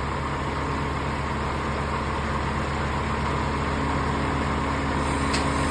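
Heavy machine engine running steadily as a concrete septic tank is lowered into place, with a few sharp clicks near the end.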